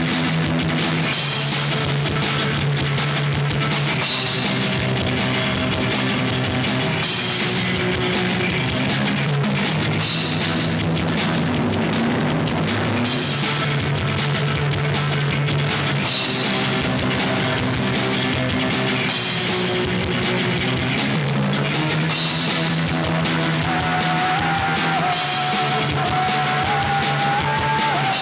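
Rock band music: a drum kit keeping a steady beat under guitar chords, with no singing yet. A single melody line comes in over it near the end.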